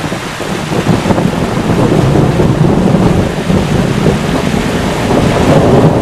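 Heavy rain pouring down, loud and steady, with a deep low rumble under the hiss like a thunderstorm.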